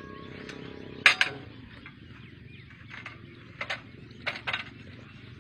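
Metal clanks and clinks of a steel date-palm climbing frame being handled and fitted around the trunk: a sharp double clank about a second in, then several lighter clinks.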